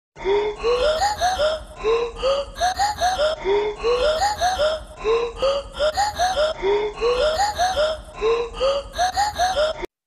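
Intro music: a short phrase of quick rising, voice-like notes looped six times, about every second and a half, over a steady low bass hum. It cuts off suddenly just before the end.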